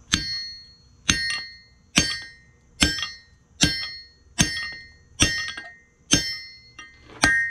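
Hammer blows driving a drift punch through the drilled hole in a steel pommel blank to open it into a ring: a steady run of ringing metal strikes, a little faster than one a second, with lighter taps between some of them.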